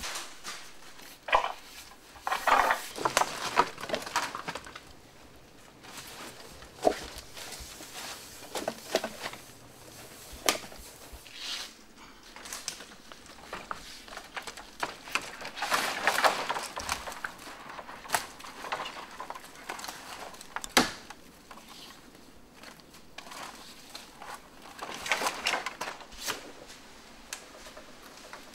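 Freshly cut green bamboo poles knocking and clattering against each other as they are handled and stacked: irregular hollow knocks, bunched in clusters, with rustling in between.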